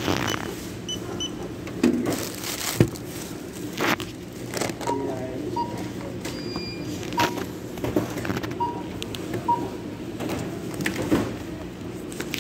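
Supermarket checkout: a barcode scanner gives short single beeps several times as items are scanned, among knocks and clatter of goods set down on the counter, over a steady store hum.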